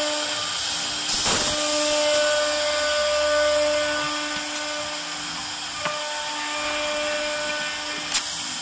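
CNC wood router spindle running at a steady high speed while its bit mills a wooden cabinet door panel: a constant whine over a cutting hiss, broken by a few brief clicks.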